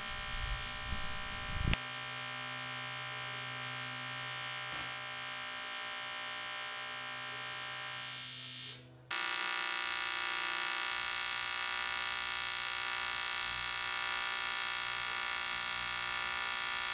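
TIG welding arc from an ARCCAPTAIN 200P AC/DC welder buzzing steadily while welding aluminium frame tubing. It strikes with a click about two seconds in, breaks off for a moment near the middle, then buzzes steadily again.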